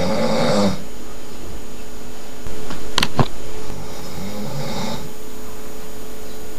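A sleeping person snoring loudly, a rasping snore about every four seconds: one dies away just under a second in and another comes at about four to five seconds. About three seconds in, two sharp clicks come close together.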